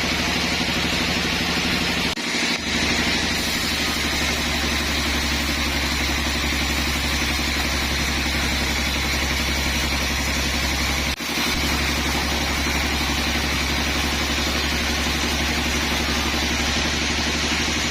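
Sawmill machinery running steadily: a constant engine or motor drone with a low hum and a hiss, dipping briefly twice, about two seconds in and again about eleven seconds in.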